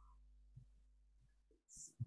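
Near silence: a faint steady low hum from the recording line, with a brief soft hiss near the end.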